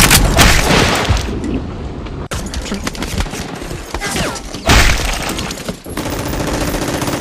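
Dubbed-in gunfire and explosion sound effects: rapid crackling volleys with heavy blasts, loudest at the start and again near the five-second mark. Music comes in near the end.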